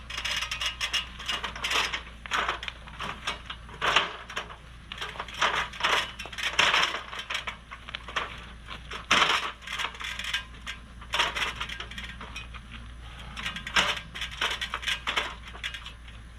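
Irregular crinkling and rustling of plastic sheet material being handled, with small clicks scattered throughout: the work of patching a torn carport canopy with rubberized RV repair tape.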